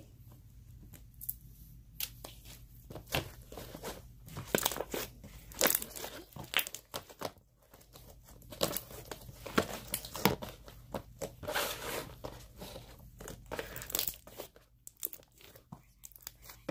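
Slime being stretched, kneaded and pressed with the hands against a plastic tray, making irregular sticky crackles and pops, busiest in the middle stretch.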